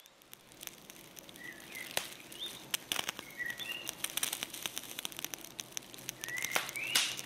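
Small birds giving short chirps over a steady irregular crackle of sharp clicks, with a cluster of rising chirps near the end.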